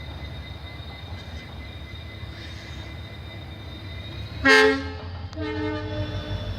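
Indian Railways WDP4D diesel locomotive's EMD two-stroke engine running with a steady low rumble; about four and a half seconds in, its horn gives a short loud blast, followed a moment later by a second, longer and quieter blast.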